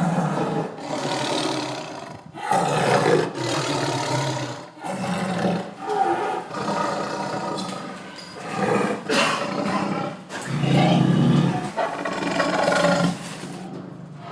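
Tiger giving a string of aggressive roars and growls, one after another, each about a second long with short breaks between.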